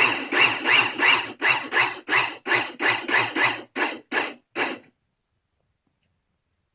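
Hydraulic pump driving a monostrand stressing ram against the clamp, a fast even series of mechanical strokes, about three a second, each with a rising squeal, that stops abruptly about five seconds in.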